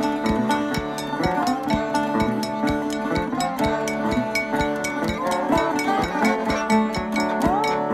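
Background music with a steady beat and sustained pitched notes, with a few sliding notes near the end.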